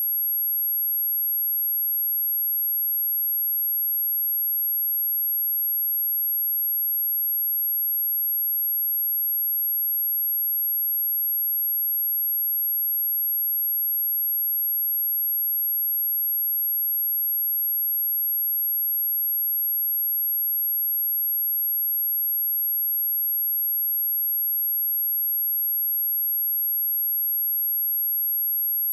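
Steady pure sine-wave test tone at 11517 Hz, a single high-pitched whistle that holds constant, used to test speakers and shake water and dust out of them.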